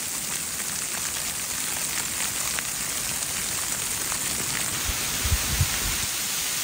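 Light drizzle pattering on a Dyneema fiber tarp: a steady, dense hiss of fine drops, with a few low thumps about five seconds in.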